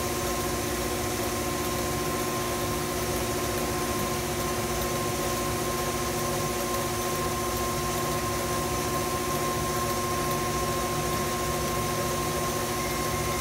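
Electric stand mixer running steadily on its low stir setting, beating eggs into pound cake batter: an even motor hum with a steady whine.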